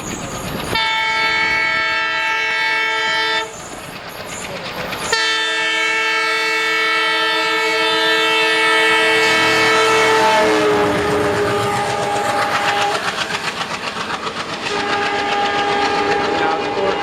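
WDM3D diesel locomotive's horn sounding two long blasts, the second stepping down in pitch as the locomotive goes by. Further lower-pitched horn blasts follow over the rhythmic clickety-clack of the train's wheels over rail joints.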